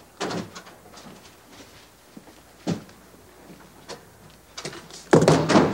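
Interior door knocked and bumped a few times, then opened with a louder rush of noise near the end.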